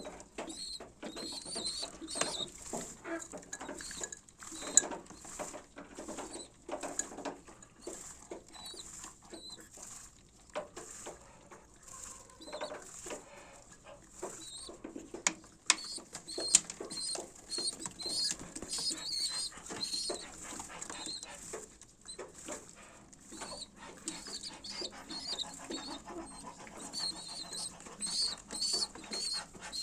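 Pigeon squabs squeaking over and over in short, high-pitched begging cheeps while a parent feeds them, with rustling and scattered light clicks of movement in the nest.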